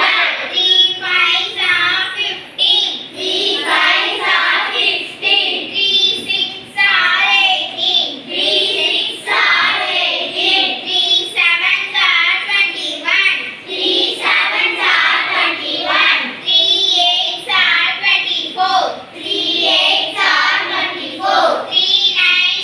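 Young schoolgirls reciting a multiplication table aloud together in Tamil, in a sing-song chant of short phrases one after another.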